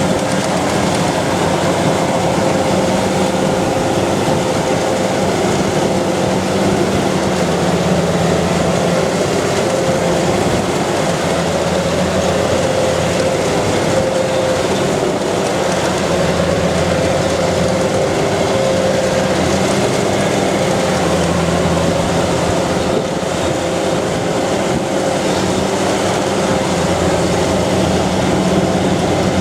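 Kubota rice combine harvester running steadily while cutting ripe rice: the engine and threshing machinery make a constant loud drone with a steady whine.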